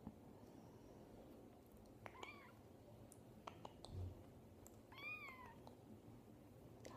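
A young kitten mewing faintly twice, each mew a short call that rises and falls in pitch. A soft low thump comes between the two mews.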